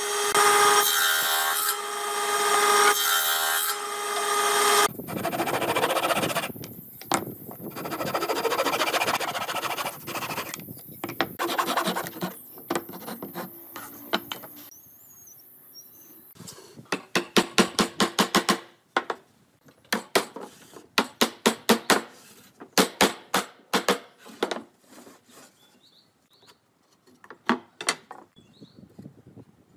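A table saw running with a steady hum and cutting through pine several times, until the saw stops about five seconds in. Then scraping and rubbing on wood, followed by a long run of sharp knocks in quick groups.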